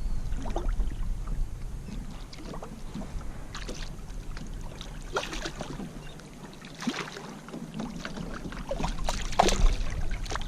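Water splashing and sloshing around a kayak in scattered short bursts, with small knocks, while a hooked redfish is fought at the kayak's side.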